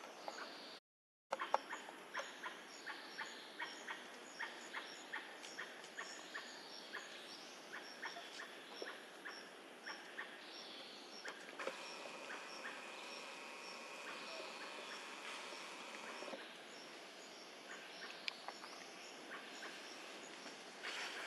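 Forest birds calling in a quick run of short, sharp chirps, about two to three a second, with a steady buzzing tone for a few seconds past the middle. The sound cuts out completely for a moment about a second in.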